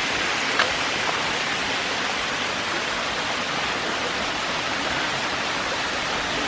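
Steady rush of a waterfall's falling water, an even hiss with no pauses, with a faint short knock about half a second in.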